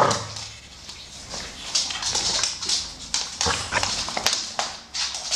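Claws of two American Staffordshire Terriers clicking and scuffing on a hardwood floor as the dogs shift around in play, with many quick uneven taps.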